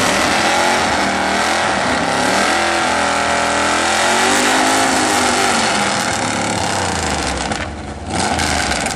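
Gasser-style drag coupe's engine running loud and revving hard, its pitch climbing and falling, then dropping off briefly near the end before picking up again.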